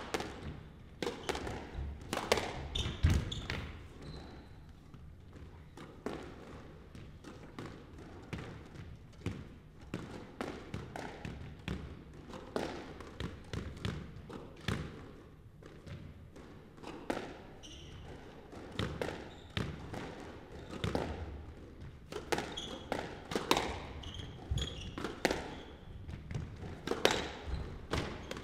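Squash rallies: the ball struck by rackets and smacking off the court walls in sharp, irregular hits, with shoes squeaking on the hardwood floor.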